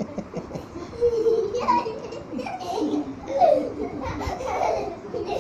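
Young boys laughing loudly in bursts while play-wrestling.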